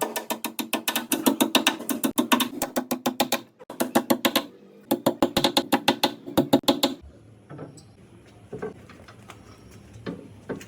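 Rapid, evenly spaced percussive strikes, roughly eight a second, in runs broken by two short gaps, ending abruptly about seven seconds in. A few quieter knocks follow.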